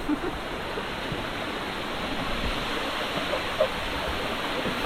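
A waterfall running strongly: a steady, even rush of falling water.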